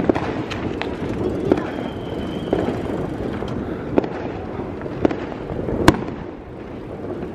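Fireworks going off: about seven irregular sharp bangs from bursting shells, the loudest near six seconds in, over a steady rumble of noise, with a faint high whistle about two seconds in.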